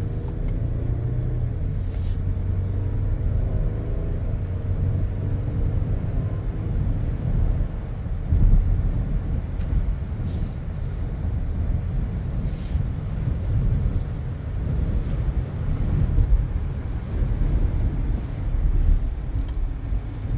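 2017 Audi Q7 3.0T being driven: steady low road and tyre rumble, with its 3.0-litre V6 engine note climbing in pitch over the first few seconds as it pulls.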